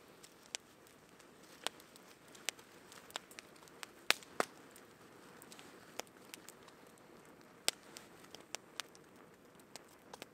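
Long campfire of burning wood crackling, with irregular sharp pops over a low steady hiss; the loudest pops come about four seconds in.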